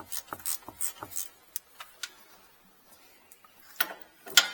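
Ratchet wrench clicking in quick, even strokes, about three a second, as it turns the engine oil drain plug, then a few scattered clicks and two sharp knocks near the end, the last the loudest.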